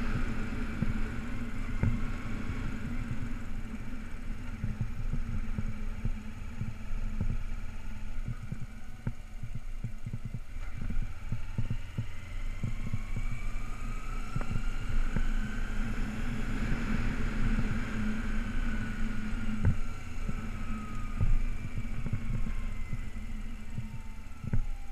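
Kawasaki Ninja 250R's parallel-twin engine running as the motorcycle rides along, heard from a helmet-mounted camera, with wind thumping on the microphone throughout. About halfway through, a whine slowly rises in pitch, then falls again near the end.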